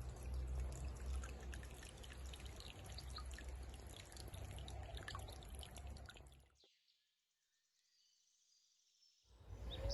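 Water trickling and dripping, made of many small irregular drips, which cuts off abruptly into dead silence about six and a half seconds in.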